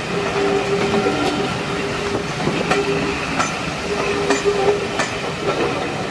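Passenger coaches rolling slowly past on the rails, the wheels clicking sharply over rail joints and crossing work every second or so. Short steady squeals from the wheels come and go.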